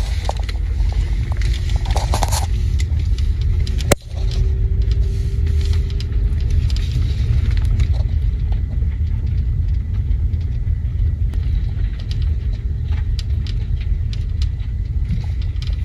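Volvo S80 driving over uneven road, heard from inside the car's rear: a steady low road rumble with scattered sharp clicks and crackles. The clicks come from two overlapping spot-welded body panels in the trunk rubbing and snapping against each other over bumps, a seam left without seam sealer. One especially sharp crack comes about four seconds in.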